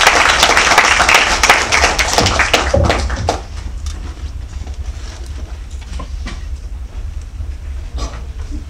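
Audience applause, dense clapping that dies away about three seconds in. After it a low steady hum remains, with a few scattered knocks.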